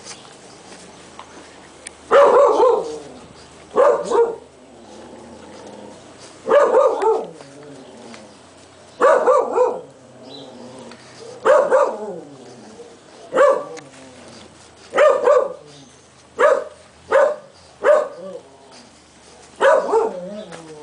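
English bulldog puppy barking over and over, about eleven short barks spaced a second or two apart, starting about two seconds in.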